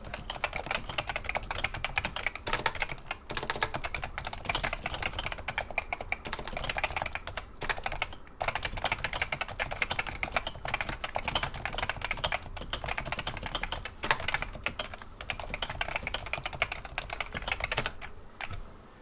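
Steady, fast typing on a Realforce RGB keyboard with Topre electrostatic-capacitive rubber-dome switches and thick 1.5 mm PBT keycaps: dense, rapid keystroke clicks. There is a brief pause about midway, and the typing stops shortly before the end.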